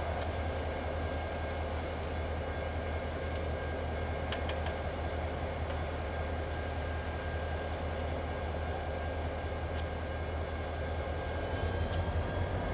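Diesel locomotive idling at a standstill: a steady low rumble with a faint steady whine above it and a few light clicks.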